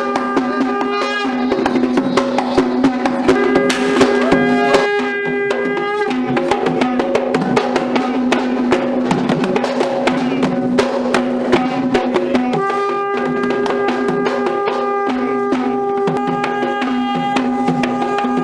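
Music: fast, dense drumming, with long held pitched notes over it that drop out about six seconds in and come back about twelve seconds in.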